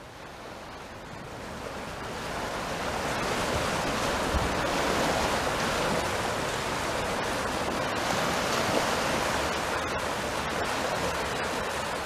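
Small sea waves washing in and breaking in the shallows, a steady hiss of surf that builds over the first few seconds and then holds.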